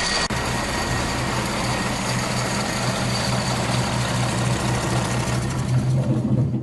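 Freshly rebuilt diesel engine running steadily, with its turbocharger not yet connected.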